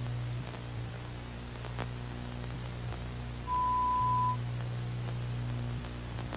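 Low electronic drone over a steady hiss of static, the drone dropping out for a few seconds and coming back. About three and a half seconds in, a single steady high beep sounds for just under a second.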